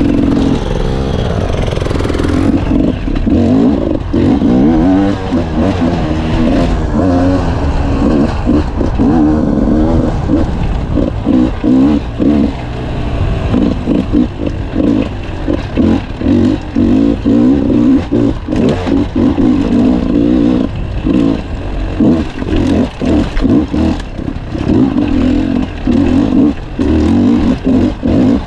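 Enduro dirt bike engine heard from on the bike, revving up and down with the throttle as it rides rough trail. Steady at first, then in short choppy bursts on and off the throttle through most of the ride.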